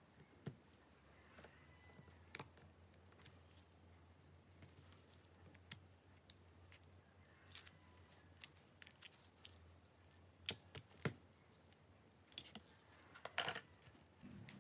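Steel tweezers clicking and scraping against a phone's metal mid-frame and its parts: scattered light ticks, a few sharper clicks in the second half and a short scrape near the end.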